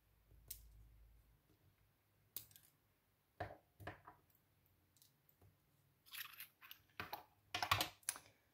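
A brass lock housing and small metal parts being handled and set down on a countertop: scattered light clicks and knocks, a few at first and then a busier run near the end.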